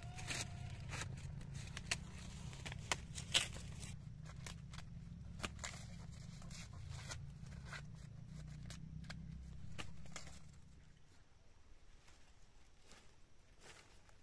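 Dry ears of corn being pulled and husked from dead stalks, with sharp crackles of dry husks and knocks of cobs dropping into a wicker basket, over a low rumble that stops about ten seconds in.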